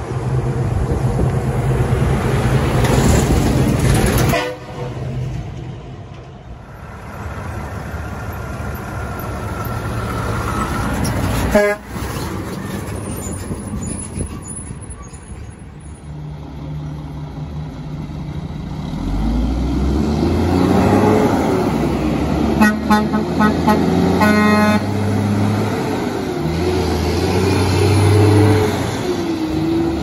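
Semi-truck air horns honking as 18-wheelers drive by, over the noise of the passing trucks. The sound cuts off abruptly a few times between clips, and a quick run of short pulses comes about three-quarters of the way through.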